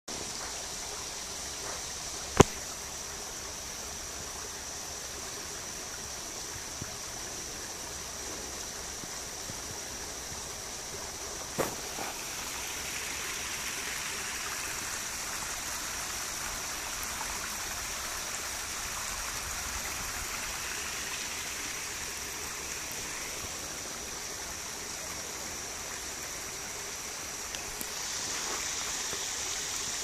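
Small rocky mountain stream running and trickling over stones and little cascades, a steady rushing of water. Two sharp clicks cut through it, one about two seconds in and one about twelve seconds in.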